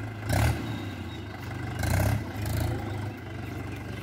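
Mahindra Arjun 555 DI tractor's diesel engine running steadily under load while pulling a cultivator through a field, with three brief louder surges.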